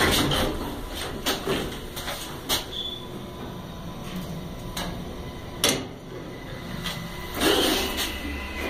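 Subway station elevator car running, with a steady low rumble and scattered clicks and clunks; a louder knock comes about two thirds of the way through and a louder noisy rattle near the end.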